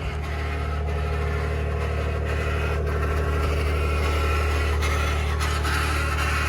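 2021 Ford F-150 PowerBoost hybrid's 3.5-litre twin-turbo V6 running just after a cold start, a steady low drone with a rough grinding, cavitating noise over it: the cold-start noise the owner is documenting.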